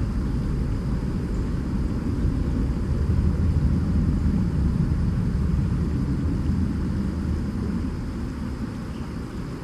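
Low, steady engine rumble, like distant traffic or an aircraft, swelling a few seconds in and easing off near the end.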